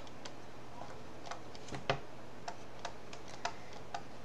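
Stylus tip tapping on a tablet screen while words are handwritten: light, irregular clicks, about a dozen scattered through, over a faint steady hum.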